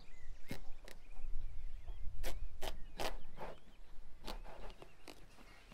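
Kitchen knife cutting into a raw pumpkin, making a string of sharp, irregular cracks and crunches as the blade forces through the hard rind. Faint birdsong chirps between them.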